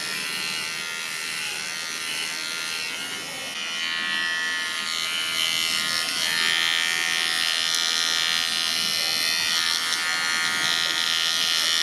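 Small cordless electric pet clipper buzzing steadily as it trims the fur between a dog's paw pads; the buzz gets louder about four seconds in.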